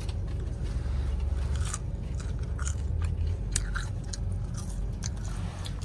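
Someone chewing and crunching on fried takeout food, short crackly bites and chews scattered through, over a steady low hum.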